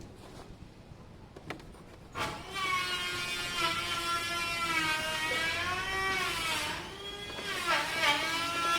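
An electric machine polisher's motor whines steadily while cutting compound is worked into a plastic scooter panel. Its pitch wavers and dips as it is pressed against the panel. The whine starts about two seconds in, after a few light knocks.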